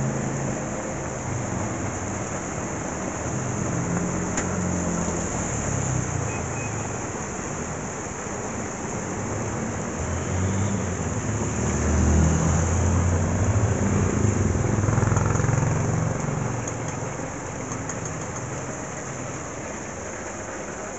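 Steady hiss of heavy rain together with battered eggs sizzling in deep-frying oil, with a low rumble that grows louder about halfway through.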